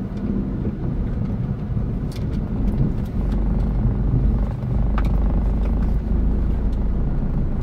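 Car engine and tyre rumble heard from inside the cabin, a steady low drone that grows louder about three seconds in, with a few faint clicks.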